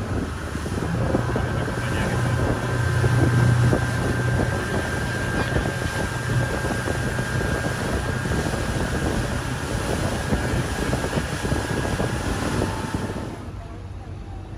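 Motorboat engine running as the boat cruises, with wind on the microphone and water rushing along the hull. It drops a little quieter near the end.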